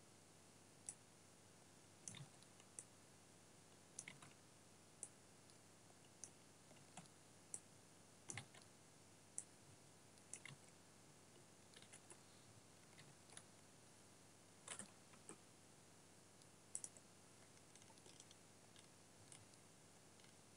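Faint, scattered clicks of a computer mouse and keyboard, irregular and about one a second, over near-silent room tone.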